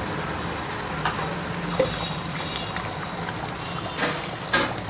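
Thick chicken curry gravy bubbling at a simmer in an aluminium pot on a gas stove: a steady wet bubbling hiss over a low hum, with a few light clicks and a couple of sharper knocks near the end.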